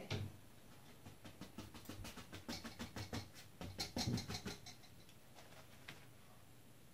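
Faint, irregular scratching and tapping of a bristle paintbrush picking up paint and dabbing on a canvas, thinning out near the end.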